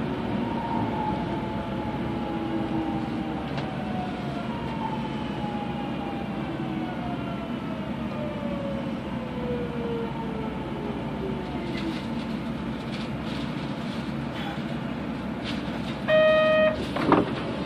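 Kobe City Subway 3000 series train's Hitachi GTO-VVVF traction inverter whining in several tones that fall slowly as the train brakes, over steady running noise heard from inside the car. Near the end a short buzzer-like tone sounds, followed by a few clunks.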